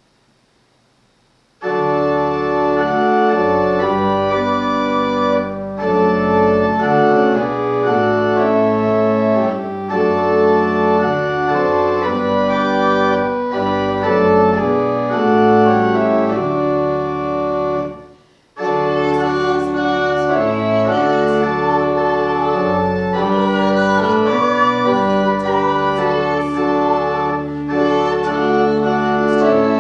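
Church pipe organ playing sustained chords. It breaks off briefly about two-thirds of the way through, then resumes.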